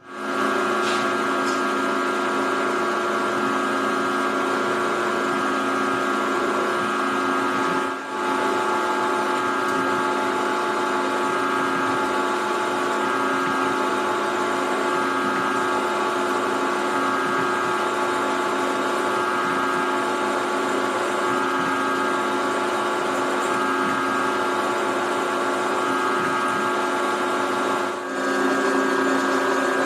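Vertical milling machine running steadily, its spindle drive giving a constant whine with several steady tones, as a twist drill cuts a large hole through a steel plate. The sound dips briefly twice.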